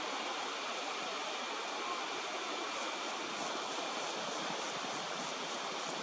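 Steady rushing outdoor background noise, even and unbroken, with faint high chirps repeating about three times a second from about halfway through.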